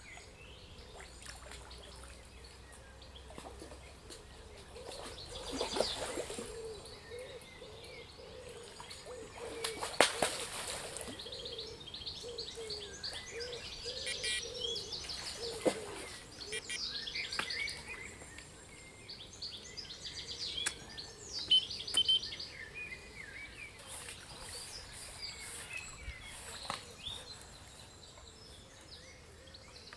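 Songbirds singing and chirping all through, with a few sharp knocks (one about a third of the way in, two close together past the middle) and brief louder rustling noise.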